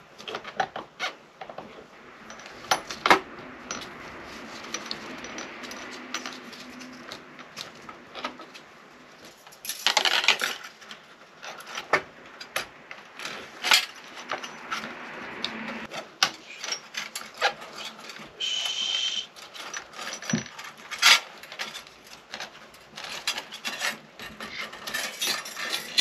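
Irregular metallic clicks and clinks as steel rocker arms, wave washers and the rocker shaft of a Honda engine's cam holder assembly are handled and fitted in a stainless steel parts tray, with a brief scraping sound about ten seconds in.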